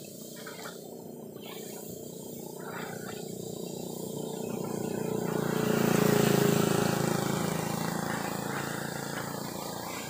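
Pressure washer running and spraying, with a steady hiss and a motor hum underneath. It grows louder to a peak a little past the middle, then eases off.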